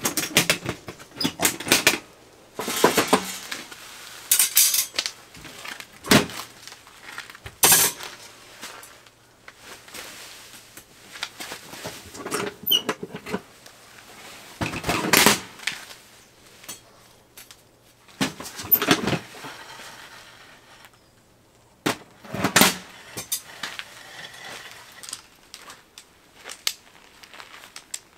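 Irregular clattering and knocking of hard objects being handled and set down, about a dozen sharp knocks spread out with quieter rustling between them.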